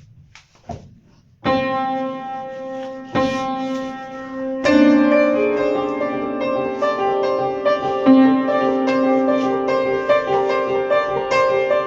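A bell-ringing pattern of struck, ringing notes. A single strike comes about a second and a half in, then two more a couple of seconds apart, and from about five seconds a quicker run of overlapping notes rings on together.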